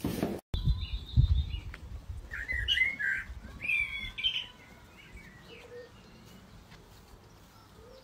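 Small birds chirping in short bursts for the first few seconds, fading to a few faint calls, over a low rumble on the microphone.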